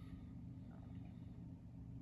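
Faint room tone: a steady low hum with nothing else clearly standing out.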